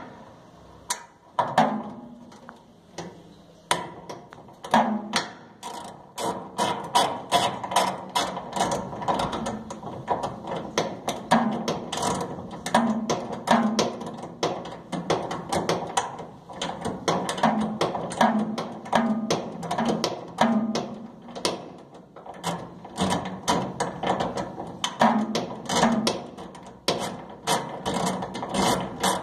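Hand ratchet wrench clicking in quick runs, worked back and forth on a fitting at the dryer's gas burner assembly.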